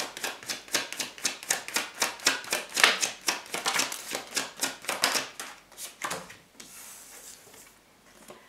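Tarot deck being shuffled by hand: a rapid run of card flicks and slaps, about seven a second, that stops about six seconds in, then a soft sliding rustle of cards.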